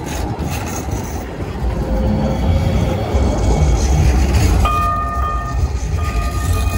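Hudson-Bergen Light Rail articulated train passing close by, its wheels and running gear making a steady low rumble. Near the end a steady high tone sounds twice.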